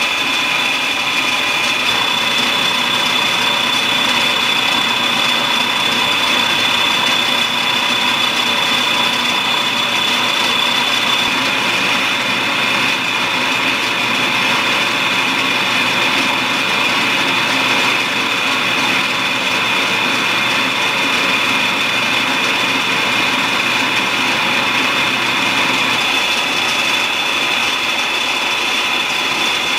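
Enco horizontal metal-cutting bandsaw running, its blade cutting steadily through a large round metal bar under a coolant drip. A continuous even cutting noise with a steady high whine.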